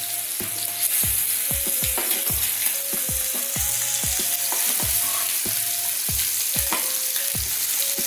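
Masala-coated fish pieces shallow-frying in oil in a pan, a steady sizzle, with a metal spatula scraping as the pieces are turned. A background music track with an even beat runs underneath.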